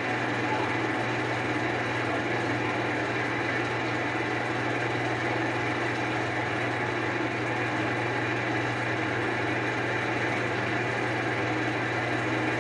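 A machine running steadily with a constant low hum and an even mechanical noise over it, with no change in speed or level.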